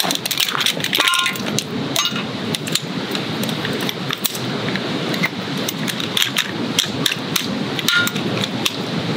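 Folding camp chair's metal frame being opened and fitted together by hand: scattered clicks, knocks and light rattles of the poles, over a steady background hiss.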